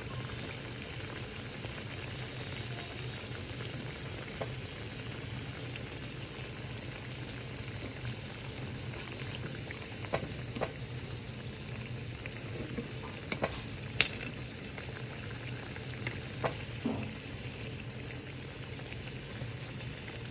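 Poha (flattened rice) doughnuts deep-frying in hot oil on medium heat: a steady sizzle, with a few sharp clicks, the loudest about two-thirds of the way through.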